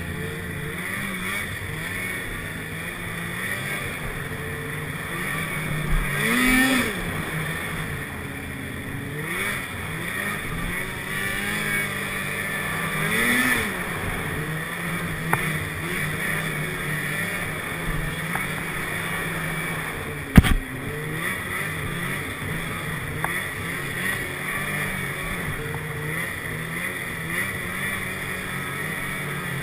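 Snowmobile engine running as it travels along the trail, its pitch and loudness briefly rising and falling twice under throttle. There is a single sharp knock about twenty seconds in.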